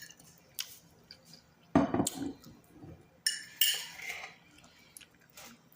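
Fork clinking and scraping on a plate while eating, in a few separate clatters, the loudest about two seconds in.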